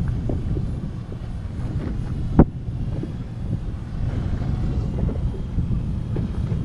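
Wind buffeting the microphone on a boat on open water, a steady low rumble, with one sharp knock about two and a half seconds in.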